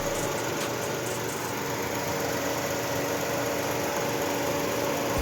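Nissan March engine idling steadily with the air-conditioning compressor engaged, a smooth, even hum. The compressor and condenser are newly replaced and the AC is cooling normally.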